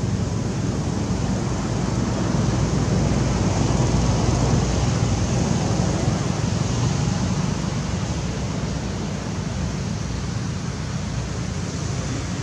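Steady outdoor rumble and hiss with no distinct events, of the kind made by wind on a microphone or distant traffic.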